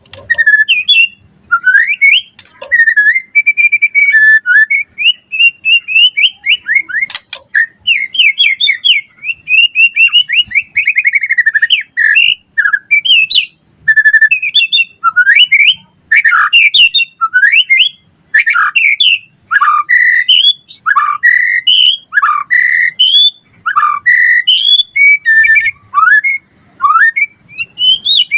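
White-rumped shama (murai batu) singing loudly and without a break: a long, varied run of whistled phrases, fast trills and sharp down-slurred notes that follow each other with only short pauses.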